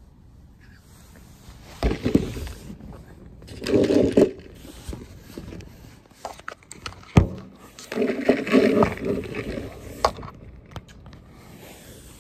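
Phone being handled, with fingers rubbing and scraping over the microphone and a sharp knock about seven seconds in. Two louder stretches of a low, pitched sound come around four and eight seconds in.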